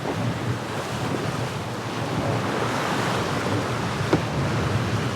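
Steady rush of wind on the microphone and water streaming past the hull of a VO65 racing yacht under sail.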